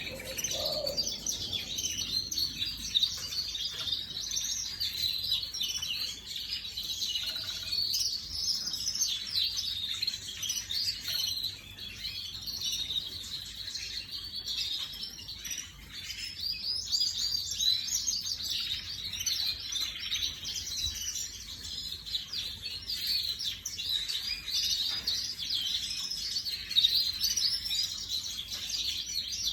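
Domestic canary singing: a long, unbroken run of rapid trills and chirps.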